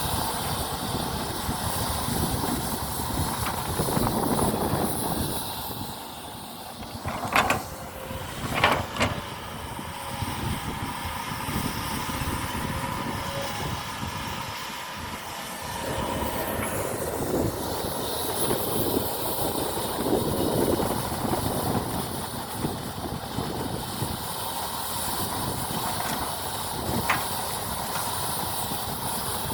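Excavator working as it loads soil into a truck: steady machine running noise with a faint whine. Two sharp clanks come about seven and nine seconds in, and a lighter one near the end.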